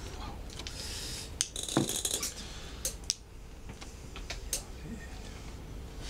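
Mahjong tiles clacking as players draw and discard them on a felt-topped table: a scattered series of sharp clicks, the loudest just under two seconds in.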